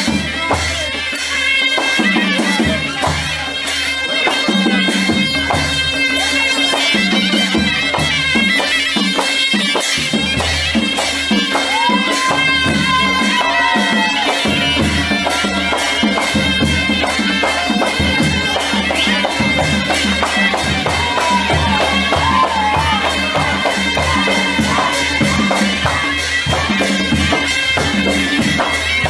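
Traditional folk music: a loud reedy wind instrument plays a melody over a steady, fast beat of drums and cymbals.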